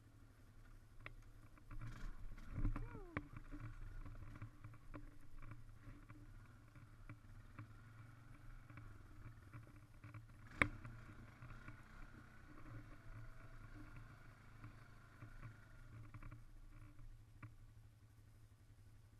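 Honda ATV engine running steadily with a low hum while riding a dirt trail, louder for a moment about three seconds in. A single sharp knock comes about ten and a half seconds in.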